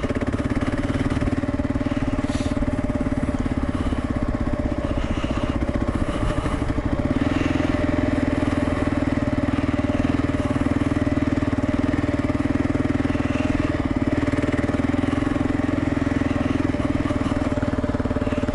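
Kawasaki KLR650's single-cylinder engine, fitted with a Lexx MX aftermarket exhaust, running steadily under way on a dirt surface. About seven seconds in, the engine note gets a little louder and stays there.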